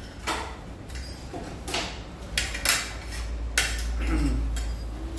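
Metal forks and spoons clinking and scraping on ceramic plates as people eat, with several sharp clinks and a low rumble in the second half.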